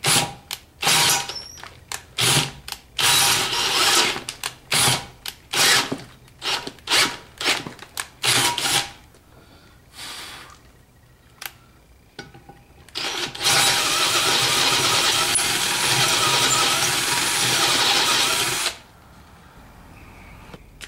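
Power drill boring out a damaged bolt hole in an aluminum intake manifold, clearing it for a 5/16-18 thread repair insert. First comes a string of short trigger bursts, then after a pause one steady run of about five seconds that stops abruptly.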